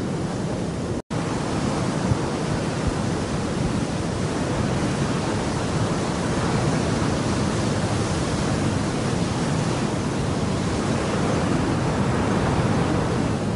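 Steady rushing noise of surf on a beach, without distinct single waves standing out; it cuts out for an instant about a second in.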